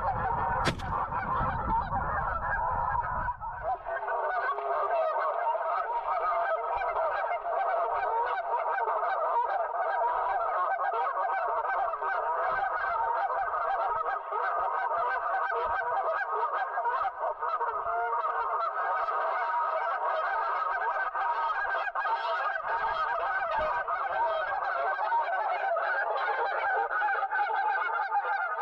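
A dense, steady chorus of many geese honking without a break. There is a single sharp click under a second in and a low rumble that stops about three seconds in.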